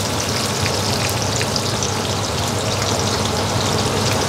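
Garlic, ginger, coriander and whole spices sizzling in sesame oil in a wok: a steady frying hiss with small crackles and pops. The aromatics are browning and turning fragrant, the stage before the hoisin sauce goes in.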